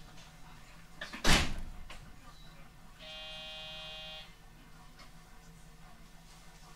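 On a stationary 311 series electric train, a door bangs shut about a second in. Then an electronic buzzer sounds once for just over a second: the conductor's signal to the driver that the doors are closed and the train may depart. A low steady hum from the train runs underneath.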